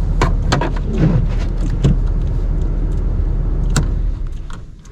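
Snowplow truck's engine idling, heard from inside the cab, with several sharp clicks and knocks. The engine is switched off about four seconds in and the rumble dies away.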